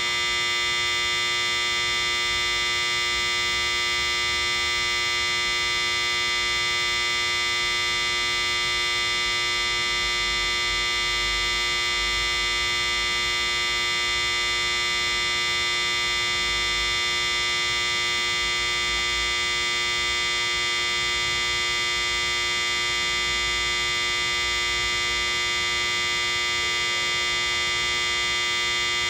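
A Toshiba static inverter (SIV), the auxiliary power supply under a train car, running: a steady electronic whine made of several fixed pitches over a faint low hum, unchanging throughout.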